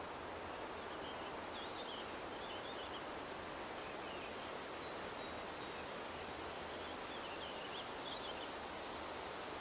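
Steady woodland background noise with faint, quick bird chirps about a second and a half in and again near the end.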